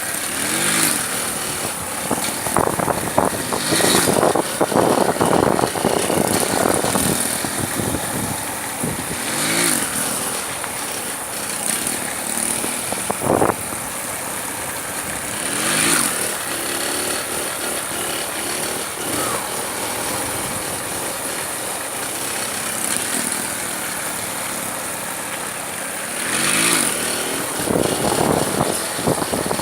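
Motorcycle engine revving up and down in repeated bursts, its pitch rising and falling, with steadier running in between.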